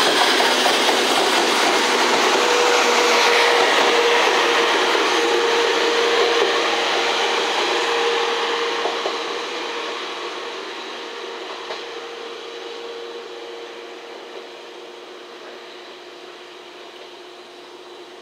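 A test train of a D51 steam locomotive, an EF65 electric locomotive and a 12-series coach running along the rails and pulling away. Its running noise and a steady hum under it stay loud at first, then fade steadily from about eight seconds in as the train recedes.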